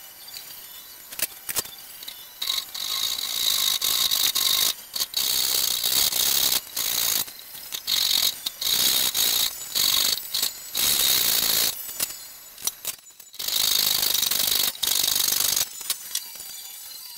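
Hand panel saw cutting through a wooden beam, a run of back-and-forth rasping strokes that begins a couple of seconds in, slackens briefly about three-quarters through, then resumes and stops shortly before the end. A few light clicks and knocks of handled wood and tools come before and after the sawing.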